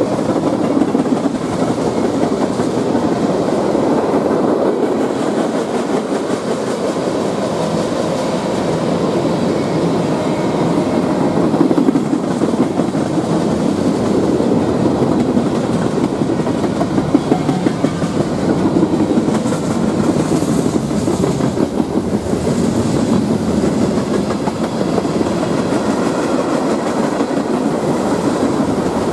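Freight cars (tank cars, boxcars and a gondola) rolling past close by: a steady rumble of steel wheels on rail with clickety-clack over the rail joints.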